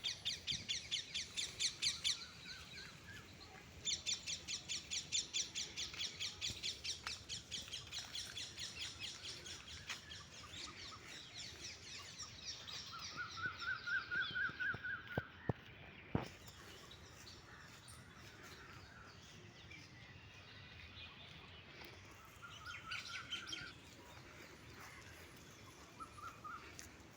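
Birds calling: long runs of rapid, evenly repeated high chirps, then a few shorter series of lower notes.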